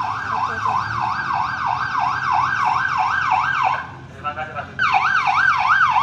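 Police car siren in a fast yelp, its pitch sweeping up and down about three times a second. It cuts out briefly about four seconds in, then starts again.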